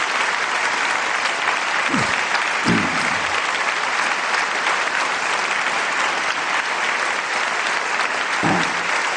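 A large church congregation applauding: dense, even clapping that holds steady, with a few brief voices heard through it about two seconds in and near the end.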